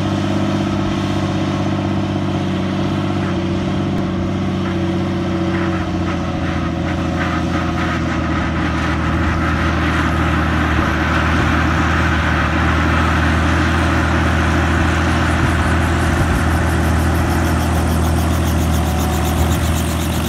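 Light two-bladed helicopter running on the ground with its rotor turning: a steady engine and rotor drone that swells slightly about halfway through, with a fast, regular rotor beat coming through near the end.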